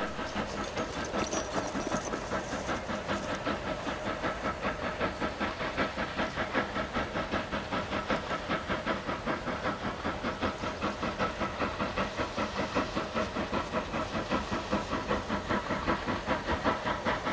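TKt48 two-cylinder steam tank locomotive working a train, its exhaust chuffing steadily at about four beats a second with a hiss of steam, slightly louder near the end.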